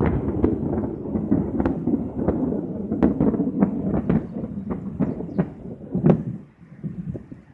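Thunder: a sudden clap, then a long rolling rumble with sharp crackles through it, dying away near the end.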